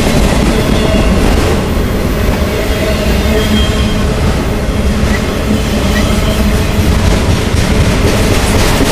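Freight train's autorack cars rolling past at close range: a loud, steady rumble of steel wheels on rail.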